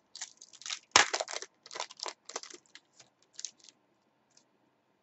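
Trading-card pack wrapper being torn open and crinkled: a quick run of crackling rustles, loudest about a second in, stopping after about three and a half seconds.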